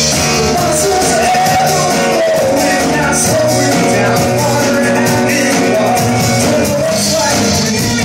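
Live rock band playing loudly: a lead singer over acoustic guitar and a drum kit.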